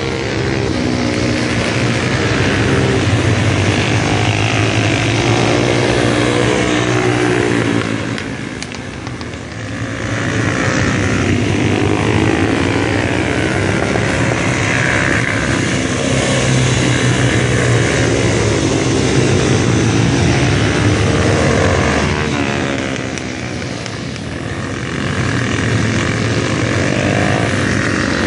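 A pack of mini road-racing motorcycles running at high revs, several engines at once, their pitch rising and falling as the bikes accelerate, shift and pass. The sound eases off twice briefly between groups of bikes before building again.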